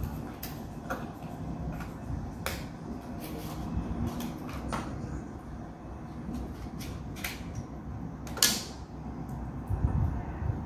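The small cardboard box of an Apple charger being unsealed and opened by hand, and the charger's plastic wrap peeled off: scattered tearing, clicking and rustling of card and plastic, with one sharper, louder crackle about eight and a half seconds in.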